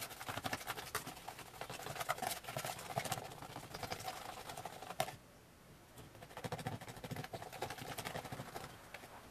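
A metal spoon stirring a thick, syrupy fake-blood mixture in a plastic tub: a fast run of clicks and scrapes against the plastic. It stops after a sharp knock just past halfway, pauses about a second, then goes on.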